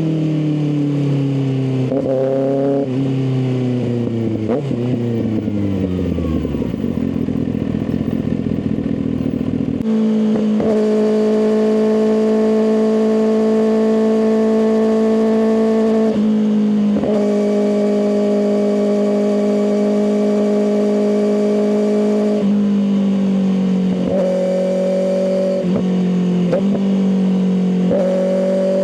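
Kawasaki ZX-6R inline-four through an M4 exhaust, slowing with falling pitch and short throttle blips for several seconds, running rough and low for a few seconds, then holding a steady high pitch. The steady pitch is broken briefly twice, and there are more blips near the end.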